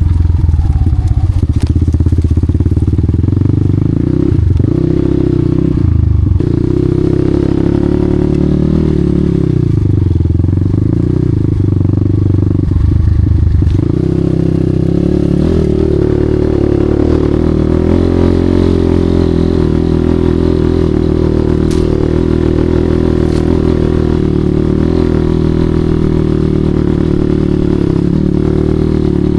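Enduro motorcycle engine running while the bike is ridden. Its pitch rises and falls with the throttle and dips briefly a few times in the first half, with some clatter over it.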